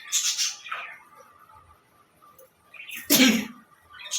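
A woman sneezes once, loudly, about three seconds in, set off by tickling the inside of her nose with a stick. A short hissing breath comes near the start.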